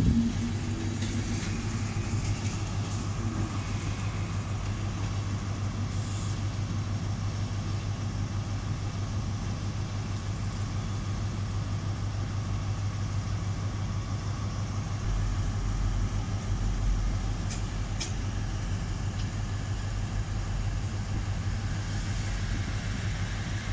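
Steady low hum of locomotives standing at the platforms of a large station, with background noise. A deeper rumble joins about fifteen seconds in.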